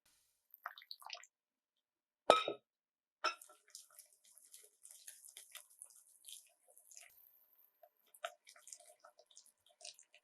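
Wet gram-flour batter being stirred in a bowl as water is worked in, a run of small squelching clicks that thins out near the end. A single sharp knock about two seconds in, likely the spoon striking the bowl.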